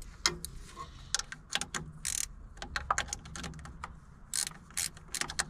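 Irregular light clicks, taps and brief rustles of hands working an ignition coil wrapped in a piece of rubber into its mount on an engine, with small metal parts clinking.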